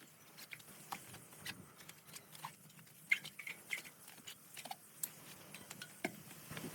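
Hands working a bicycle tyre onto its rim: scattered small clicks and a few short rubber squeaks, a cluster of squeaks about three seconds in.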